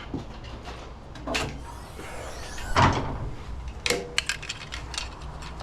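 Scattered knocks and clicks of something being handled, the loudest knock about three seconds in, over a low steady hum.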